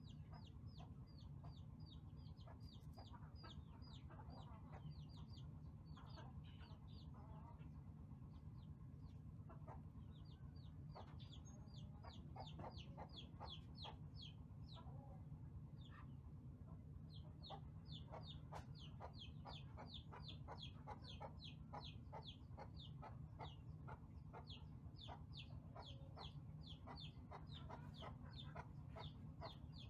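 Faint, high peeping calls in quick runs of several a second, with short pauses between runs, over a steady low hum.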